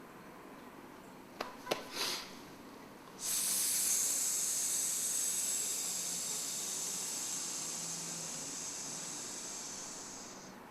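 A person breathing out a long, steady hissing 'sss' for about seven seconds, fading slowly before it stops: the 'si' lung sound of the Taoist six healing sounds. Before it come a couple of faint clicks and a short breathy noise.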